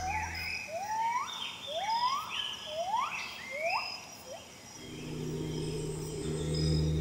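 A wild animal gives a run of rising calls, about one a second, over a faint high steady jungle hum. About five seconds in, a low sustained music drone comes in.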